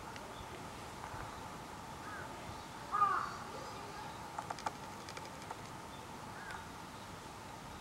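A crow cawing a few times in short arched calls, the loudest about three seconds in, over a faint steady background. A short run of sharp clicks comes around the middle.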